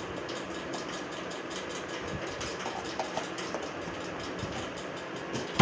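Steady mechanical hum with faint, irregular clicking over it, and a single sharp knock at the very end.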